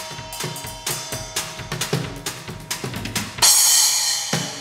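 Drum kit played with sticks: a quick run of hits on the drums and cymbals, ending in a loud cymbal crash about three and a half seconds in that rings out and fades away.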